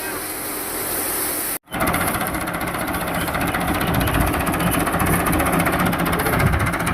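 Tractor-driven wheat thresher running with the tractor engine, a steady fast mechanical clatter with a low drone. There is a sudden break about a second and a half in, after which the machine is louder and closer.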